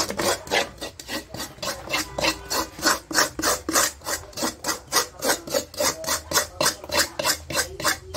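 A metal spoon scraping round the inside of a metal wok in quick, regular strokes, about three to four a second, clearing out the crumbly roasted sesame mixture stuck to the pan.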